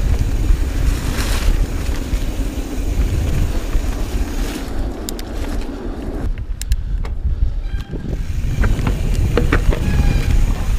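Wind buffeting the action-camera microphone as a Santa Cruz Hightower mountain bike rolls over a rough forest trail, a steady low rumble of air and tyres. Sharp clicks and rattles from the bike come in the second half.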